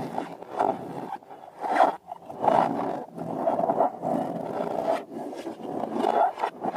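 Rubber balloons being squeezed and handled, giving rough, raspy rubbery sounds in long uneven stretches.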